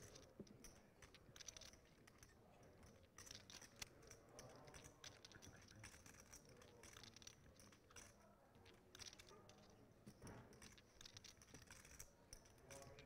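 Near silence, with faint scattered clicking of poker chips being handled at the table.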